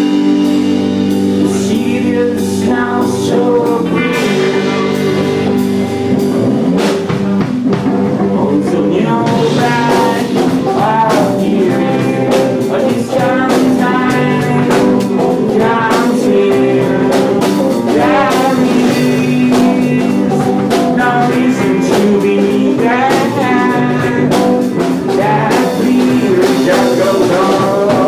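A garage rock band playing live: electric guitar and drum kit with a lead singing voice, loud throughout.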